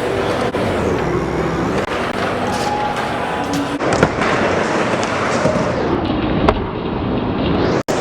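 BMX bike tyres rolling and whirring over skatepark ramps, the whir rising and falling in pitch with speed. Sharp landing impacts come about four seconds in and about six and a half seconds in, and the sound cuts out for a moment just before the end.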